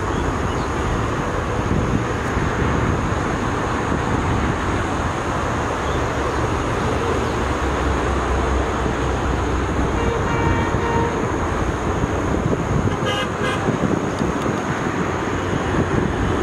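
Steady outdoor rumble with a horn tooting about ten seconds in and again briefly about thirteen seconds in.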